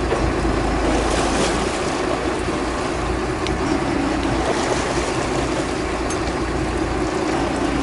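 Fishing boat's engine running steadily, a constant low hum under a wash of water noise.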